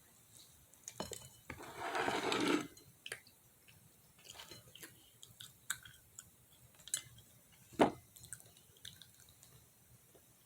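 Quiet eating and handling of fried chicken: scattered small clicks and wet mouth sounds. About two seconds in there is a louder burst of noise lasting about a second, and there is a sharp click near eight seconds.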